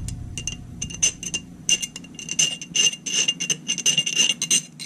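A round chainsaw file scraping back and forth against the inside edge of a steel axe head's eye, taking off the burr. Each stroke sets the head ringing with a high, clear tone. A few scattered strokes give way to a quick, louder run from about two seconds in.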